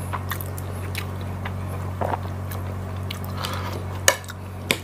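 Close-miked chewing and mouth noises of a person eating a mouthful of rice and vegetables, picked up by a clip-on microphone, over a steady low hum. Near the end come a couple of sharper clicks as a fork touches a plate.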